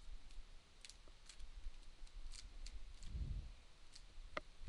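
Rubik's Cube being twisted quickly to scramble it: faint, irregular plastic clicks of the layers turning, with a soft low thud about three seconds in.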